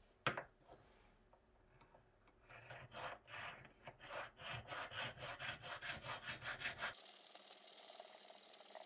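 A thin file rasping back and forth in the tang hole of a dark hardwood knife-handle block, hollowing out the inside so it fits the knife's tang. It opens with a single sharp knock, then the strokes speed up to about four a second before stopping abruptly about seven seconds in, leaving a steady hiss.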